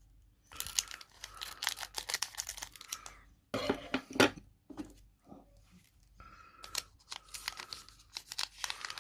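Foil Pokémon booster pack wrapper being crinkled and torn open by hand, in bursts of crackling with the loudest tearing about four seconds in.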